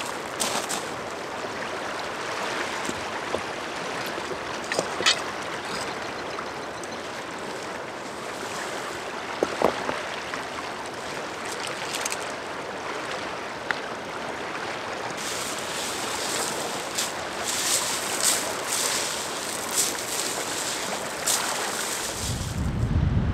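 Small waves washing steadily on a pebble shore, with scattered sharp clacks of rocks being set down on one another, more frequent in the second half. A low wind rumble on the microphone comes in near the end.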